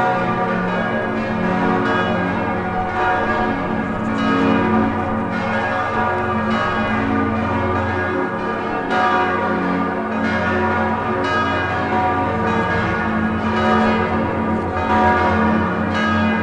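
Several large church bells ringing together in a full peal, their strikes overlapping constantly over a sustained low hum.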